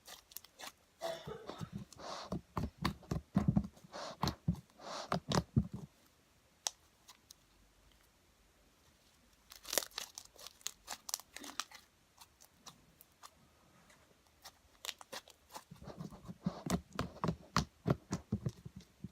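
Hands kneading and pulling apart glue slime with clay mixed in, giving sticky crackling, popping and tearing noises. They come in three spells with quiet gaps between.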